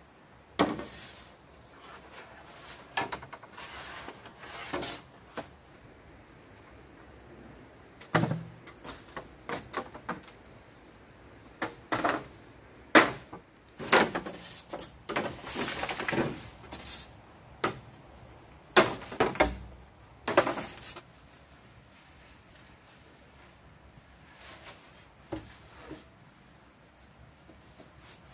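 Insects chirring steadily in a high, unbroken drone, with irregular knocks and short clatters scattered through, a few of them sharp and loud.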